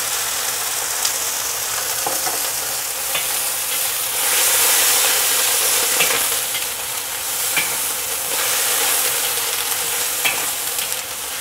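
Green beans and garlic sizzling hard in a hot wok, just after a splash of Shaoxing cooking wine, while a wok spatula scrapes and clicks against the metal now and then as they are stir-fried. The sizzle swells for a couple of seconds in the middle.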